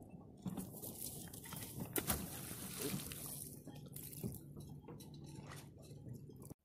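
A fishing magnet on a rope dropping into lake water with a light splash about two seconds in, then faint water sounds and a few soft knocks.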